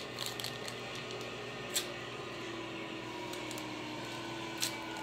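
Hurricane wind and rain as a steady rushing noise, with a few short light clicks.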